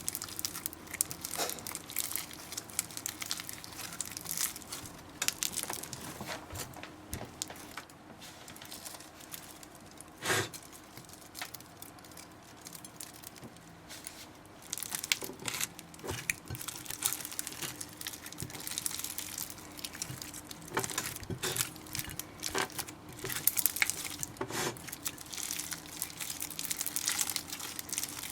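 Slime being squeezed and stretched by hand: irregular crackles and pops, with one louder pop about ten seconds in and busier crackling from about fifteen seconds on.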